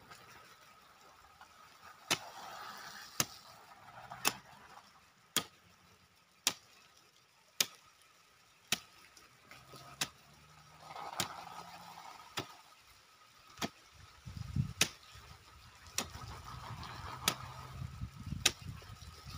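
Hoe chopping into dry soil in a steady rhythm, one sharp strike about every second, with a faint low drone joining about two-thirds of the way in.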